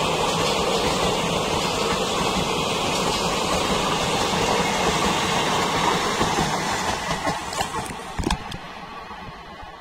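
Passenger train coaches rolling past close by: a steady rush of wheels on rail that starts to fade about seven seconds in as the last coach passes and the train draws away, with a few sharp clacks just before it fades.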